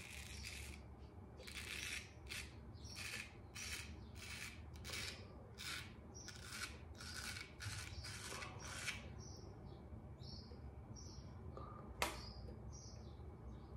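Japanese full-hollow-ground straight razor (Hayashi Diamond 8000) scraping through lathered stubble in short strokes, about two a second, for the first nine seconds. After that a bird chirps repeatedly, and a single sharp click comes about twelve seconds in.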